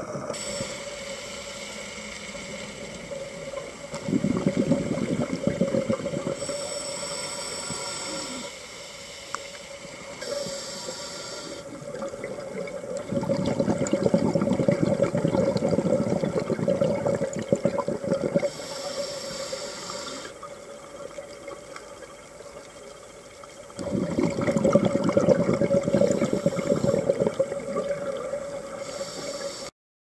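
Scuba diver breathing through a regulator underwater: long bubbling exhales about 4, 13 and 24 seconds in, with hissing inhales between them, over a steady hum.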